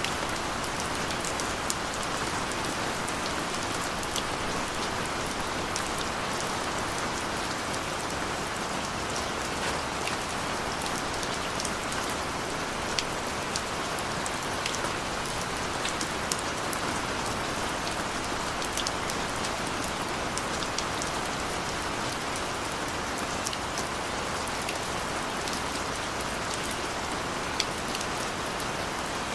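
Steady rain falling, an even hiss with many sharp drop ticks scattered through it.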